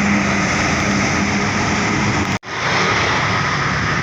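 Road traffic at close range: tour buses and other vehicles passing, a steady loud rush of engines and tyres. The sound cuts out suddenly for a split second about two and a half seconds in, then resumes.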